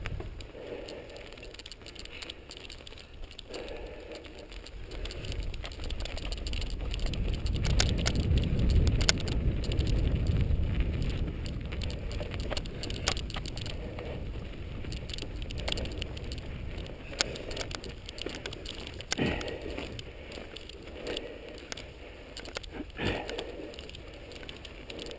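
Mountain bike rolling along a dirt single-track trail: a steady crunch of the tyres on the ground, with many clicks and rattles from the bike over the bumps. A heavy low rumble swells around the middle and eases off again.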